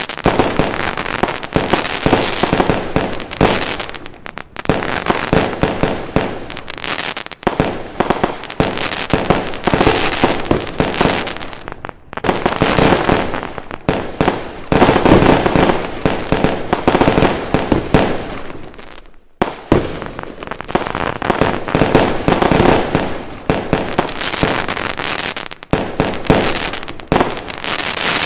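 Fireworks going off in rapid, near-continuous volleys of bangs and crackling, with a few brief lulls between barrages.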